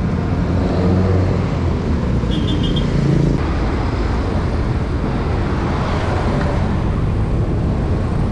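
Road traffic noise from a moving bicycle on a city street: a steady rumble of passing car and motorcycle engines. A brief high chirping comes a little over two seconds in.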